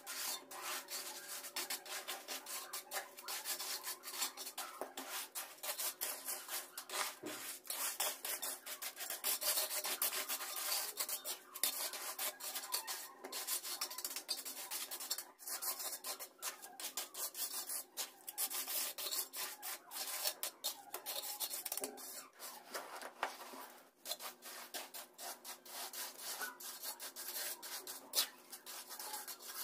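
Gritty scraping of a hand tool spreading a wet terrazzo mix of marble chips across a concrete floor, in quick, irregular strokes that go on without a break.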